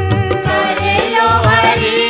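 Devotional Hindi bhajan music: a sung melody over a steady hand-drum beat with light percussion.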